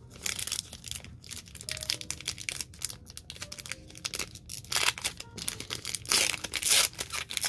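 Crinkling and crackling of a trading-card pack's foil wrapper as it is handled and torn open, with two louder tearing spells in the second half.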